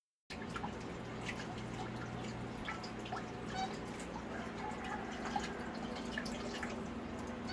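Water dripping and trickling, with many small drips over a steady wash and a low steady hum underneath. It cuts in suddenly just after the start.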